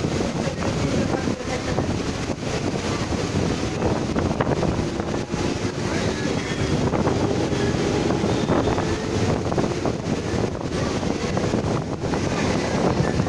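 Electric multiple-unit (EMU) suburban train running at speed, heard from its open doorway: a steady rumble of wheels on rails, with wind buffeting the microphone.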